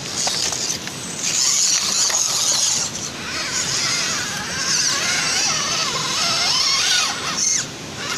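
Electric motor and gearbox of a radio-controlled scale off-road truck whining, the pitch rising and falling with the throttle, with stretches of hiss lasting about a second each.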